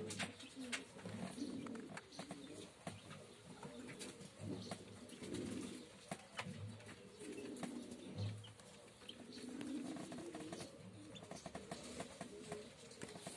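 Domestic pigeon cooing, low murmuring calls repeated every second or two, with scattered faint clicks.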